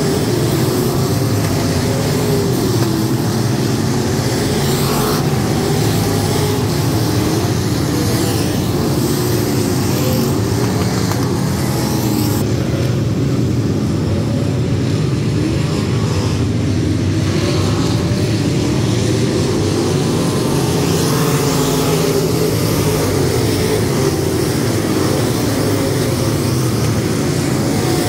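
A field of USRA limited modified dirt-track race cars, V8 engines running together as they circle the oval. Their many engine notes rise and fall over one another without a break.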